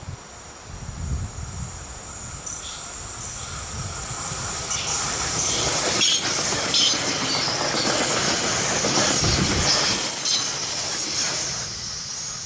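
Bombardier Aventra class 701 electric multiple unit passing at speed on the test track. Its rolling noise builds as it approaches, is loudest as it goes by, with several sharp clicks from the wheels, and fades near the end.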